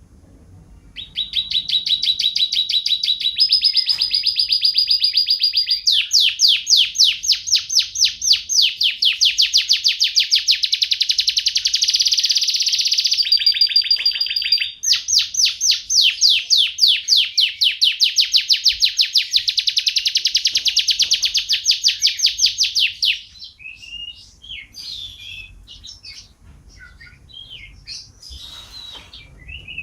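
Canary singing: long, rapid rolled trills, switching to a new trill pattern several times, then breaking into shorter, varied notes about 23 seconds in.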